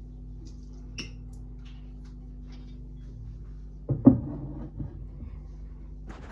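A kitchen wall-cupboard door is pulled open with a sharp knock and a brief rattle about four seconds in, and a fainter click comes near the end. A steady low hum runs underneath.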